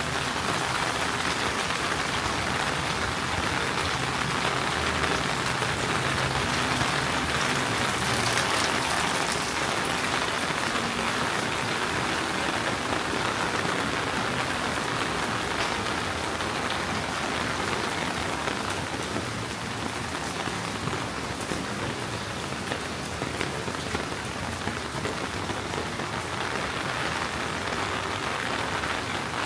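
Steady summer rain falling, a dense patter of drops that eases slightly about two-thirds of the way through.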